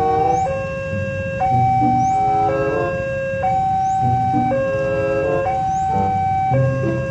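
Railway level-crossing warning alarm sounding: an electronic two-tone signal, a higher tone dropping to a lower one and then a quick run of chiming notes, repeating about every two seconds. It signals that a train is approaching the crossing.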